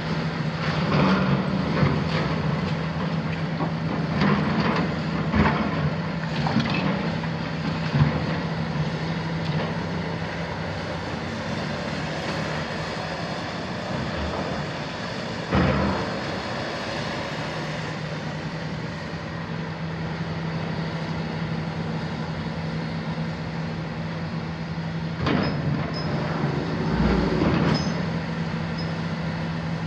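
Hitachi 350 demolition excavator's Isuzu six-cylinder diesel engine running steadily. Irregular heavy knocks and clatter of concrete rubble worked by the bucket come several times in the first eight seconds, once about halfway, and a few more times near the end.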